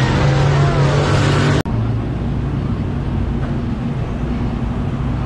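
Dirt-track modified race car engines running around the track, their pitch rising and falling. About a second and a half in this cuts off sharply to a steadier low engine rumble.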